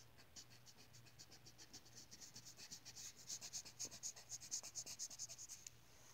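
Colouring-in on a book page: rapid back-and-forth scribbling strokes of a colouring tip on paper, about eight strokes a second, growing louder in the middle and stopping near the end.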